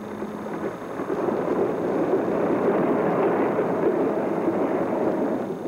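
Propeller aircraft engine noise: a steady rushing drone that swells about a second in and drops away just before the end.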